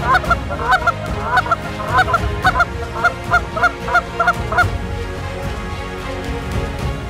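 Canada geese honking: a fast run of short, repeated honks that stops after about four and a half seconds.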